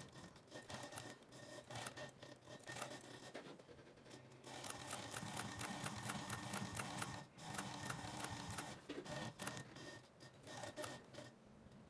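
Juki 1508 walking-foot industrial sewing machine stitching through vegetable-tanned leather, clicking stitch by stitch. It runs in a fast, even burst from a little under halfway to about three quarters of the way through, with a brief break, and in slower, spaced stitches before and after as the curve is guided.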